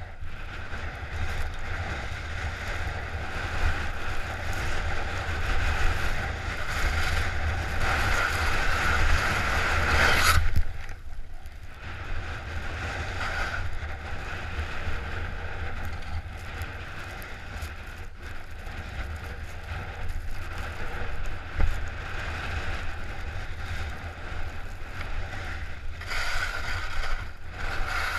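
Board or skis sliding and scraping over snow at speed, under a steady rumble of wind on the microphone. The scraping grows louder over the first ten seconds, drops away suddenly, then picks up again near the end.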